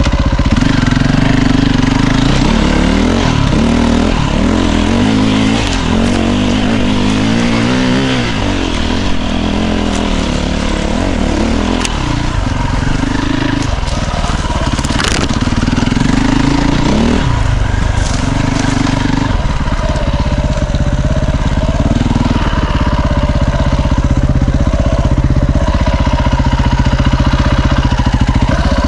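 KTM EXC 450 enduro motorcycle's single-cylinder four-stroke engine running under the rider, revving up and down with the throttle over rough trail, then holding steadier revs in the second half. A few sharp knocks come from the bike hitting the ground.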